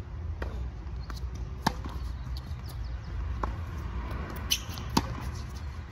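Tennis rally on a hard court: three sharp racket-on-ball hits about one and a half seconds apart, the middle one fainter. A short high squeak comes between the last two hits, over a steady low rumble.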